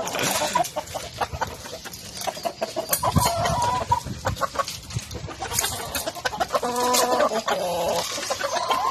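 Chickens clucking in short calls, with scattered light clicks and knocks.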